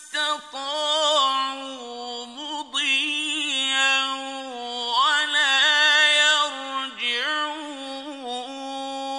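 A male reciter chanting the Quran in the slow, melodic mujawwad style of tajweed. He draws out long held notes with ornamented turns between them, pausing briefly for breath between phrases.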